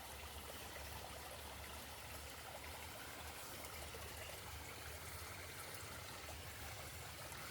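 Faint, steady rush of running water from a stream, with a low rumble beneath it.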